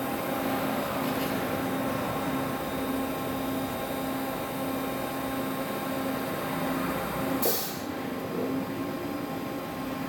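Wada Machinery WHN-400NCR NC double-head milling machine running: a steady mechanical hum with several held tones. A short, sharp hiss comes about seven and a half seconds in.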